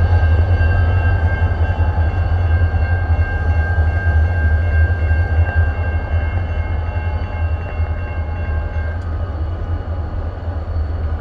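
Freight train rumbling through a road crossing behind two BNSF diesel locomotives, the sound slowly fading as the engines move away. Steady high ringing tones sit over the rumble and die out about nine seconds in.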